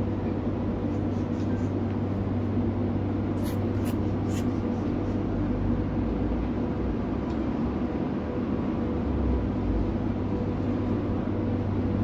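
Steady electrical hum of indoor machinery such as air conditioning or pumps, a low drone with a few faint ticks about three and a half to four and a half seconds in.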